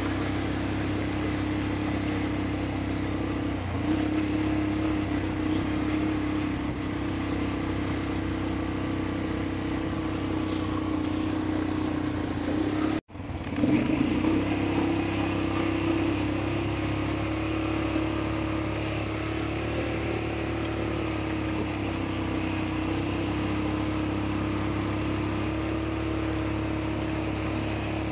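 ATV engines running at a steady speed as the quad bikes ride along, a constant low drone that drops out for an instant about halfway through.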